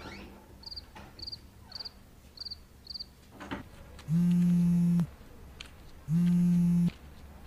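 Crickets chirp five times, high and short, in the first few seconds. Then a mobile phone's call alert sounds twice as a loud, steady low buzz almost a second long each time, about a second apart.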